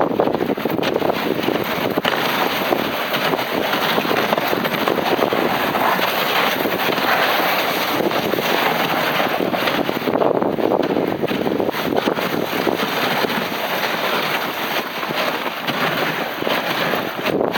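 Steady wind noise buffeting the microphone of a camera riding on a moving dog sled.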